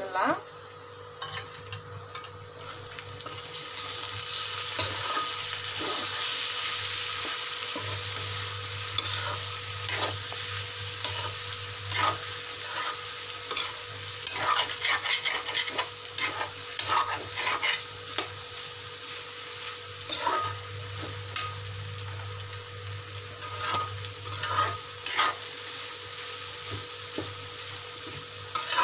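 A spatula stirring and scraping egg and cauliflower masala in a metal kadai, breaking up the set eggs and mixing them through. The spatula makes repeated clicks and scrapes against the pan over a steady sizzle of frying.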